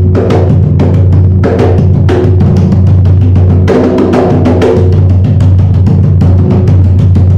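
Atabaque, a tall hide-headed hand drum, played loudly with bare hands in a fast, continuous rhythm. Quick slaps and open tones ring over a deep, sustained boom.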